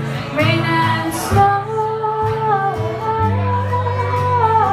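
A woman singing long, held notes over acoustic guitar, upright bass and fiddle in a small acoustic string band.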